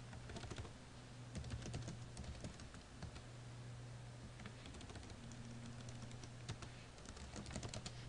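Typing on a computer keyboard: several short bursts of keystrokes over a low steady hum.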